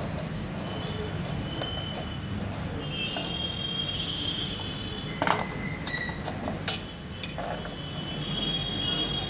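Metal tools clinking and knocking against motorcycle bolts as they are tightened, with two sharp metallic clicks about five and six and a half seconds in, over a steady rumble of street traffic.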